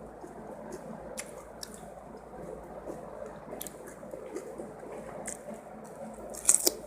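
A person chewing a mouthful of spicy fried rice with petai beans, with wet mouth clicks and smacks scattered throughout and a louder cluster of smacks near the end.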